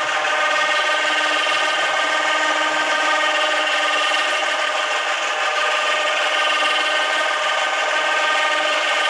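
Boat winch running with a steady, unchanging whine, paying out the steel cable that lowers a fiberglass boat down a roller ramp into the water.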